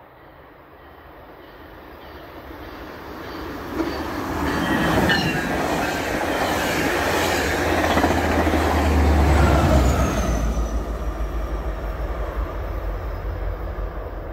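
GO Transit MP40 diesel-hauled bilevel commuter train passing at about 130 km/h: the rail and wheel noise builds as it approaches, is loudest as the coaches go by with a deep engine rumble near the peak, then eases as it recedes. A high whine falls in pitch as it passes.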